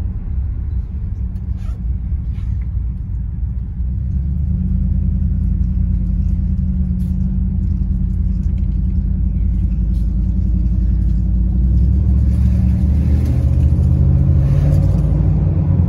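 Ford F-150's Coyote 5.0-liter V8 running with the muffler deleted and the exhaust dumped before the tail pipe, resonator kept, heard from inside the cab with the driver's window down. It is a steady low rumble with no drone or raspiness. It grows louder about four seconds in and again near the end.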